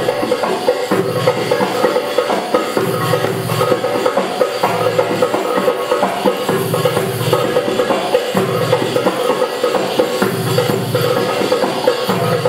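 Percussion-led music: fast, dense drum strokes over a low drum beat repeating in a steady pattern.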